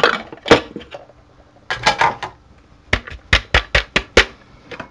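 Hard plastic parts of a Bosch MCM62020GB food processor knocking and clattering as it is taken apart after dicing: the cutting disc taken out and the bowl lifted off the motor base. A quick run of about six sharp knocks comes about three seconds in.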